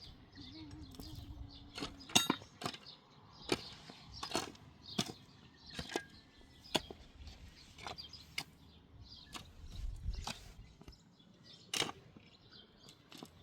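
A series of sharp knocks or taps, about a dozen spaced irregularly roughly a second apart, the loudest about two seconds in.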